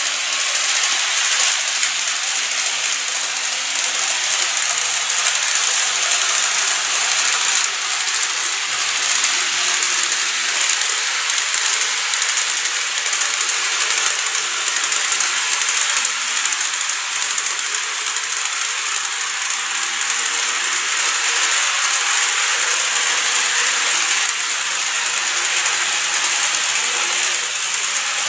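Model Seibu 30000 series train running on its track: a steady, high-pitched, hissy running noise from its motor and wheels on the rails.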